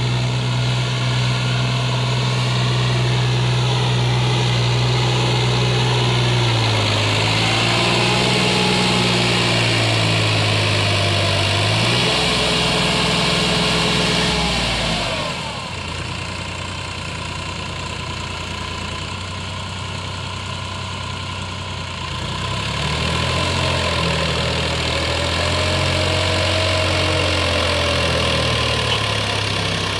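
Massey Ferguson 7250 DI tractor's three-cylinder diesel engine working under the weight of a fully loaded trolley of earth. Its note dips and recovers several times, and is quieter for several seconds in the middle before rising again.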